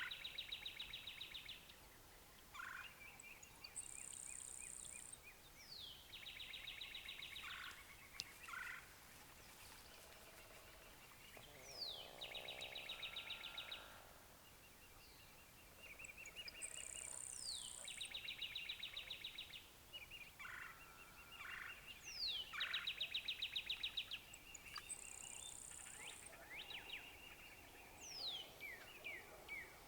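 Outdoor birdsong: a quick falling whistle followed by a rapid trill, repeated about every five seconds, with brief high buzzes now and then. A wild turkey gobbles faintly among them.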